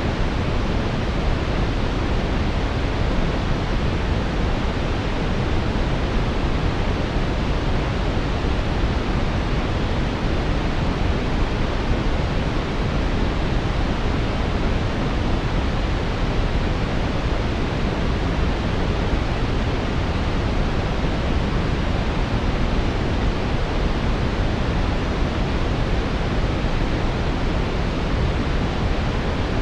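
Steady synthetic brown noise: a smooth, unbroken hiss weighted toward the low end, with no changes or events.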